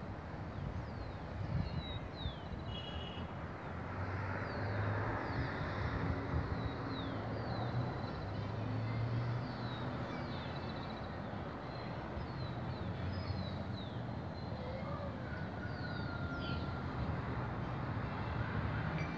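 Outdoor city ambience: a steady hum of distant traffic, with birds chirping throughout in many short, downward-sweeping calls.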